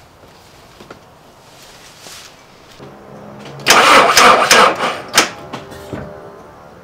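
Volkswagen car engine being started on its old, run-down battery: a short crank about three seconds in, then the engine fires with a loud burst lasting about a second and a half and settles down.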